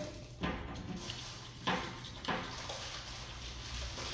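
A spoon stirring thick slime in a bowl, with three short sudden sounds as it works through the slime and hits the bowl, about half a second, one and three-quarter seconds, and two and a quarter seconds in.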